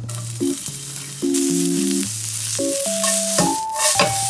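Something sizzling steadily in a hot pan on the stove, the hiss swelling about a second in and again near the end, over light background music.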